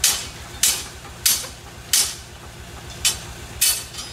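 Six sharp knocks on a steel rebar pile cage, about two-thirds of a second apart with a short break near the middle, each fading quickly. Under them runs the steady low drone of an idling engine.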